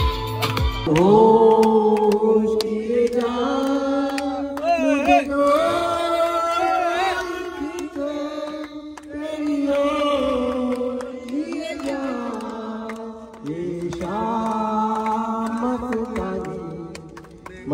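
A voice singing a slow song in long held notes that slide from one pitch to the next, with a wavering note about five seconds in. A beat-driven backing track stops within the first second.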